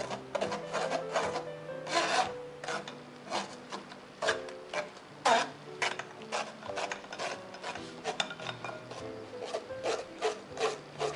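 A spoon scraping and pressing wet ground coconut against a stainless-steel mesh strainer in irregular rasping strokes, squeezing coconut milk out of the pulp.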